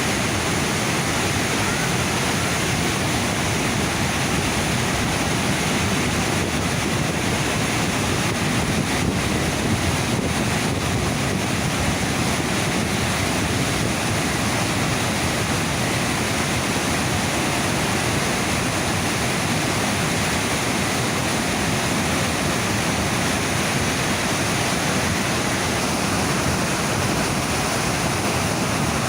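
Rushing rapids of the Niagara River just above the falls: a loud, steady roar of churning water, with some wind noise on the microphone.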